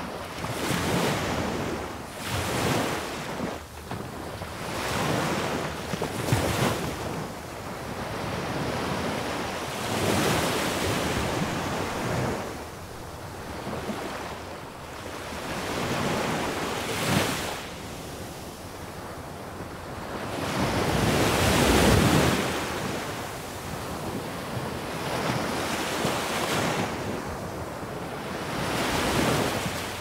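Small waves breaking and washing up a sandy beach close to the microphone. The surf rises and falls every few seconds, with the biggest wave about two-thirds of the way through.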